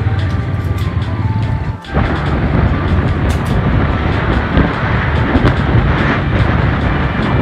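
Background music that stops about two seconds in, then wind rushing over the microphone and engine noise of a vehicle moving along a street.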